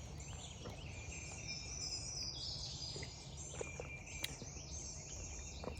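Songbirds chirping and singing in a morning chorus: many short, high notes overlapping, with a steady low rumble beneath and a couple of faint clicks. No turkey gobbles.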